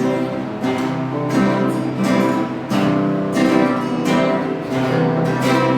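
Acoustic guitar strummed in a steady rhythm, with chords ringing between the strokes.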